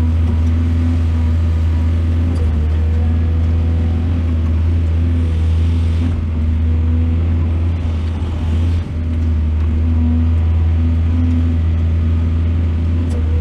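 Excavator engine running steadily, a deep continuous drone, with a brief dip in level about nine seconds in.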